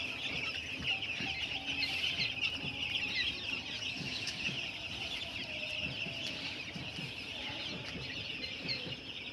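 A large flock of six-day-old broiler chicks peeping continuously, many high chirps overlapping into a steady chorus.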